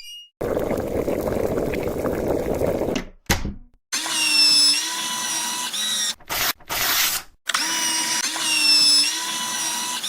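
Sound-effect clips of a whirring electric motor, spliced together with abrupt cuts. First comes a buzzing noise for about three seconds, then a steady whine twice, each about two seconds, with a short burst of hiss between them.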